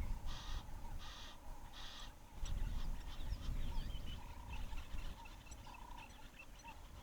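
Wild birds calling: a harsh, rasping call repeated about every 0.7 seconds stops about two seconds in, after which several birds give short chirps and whistles. A low rumble is heard about halfway through.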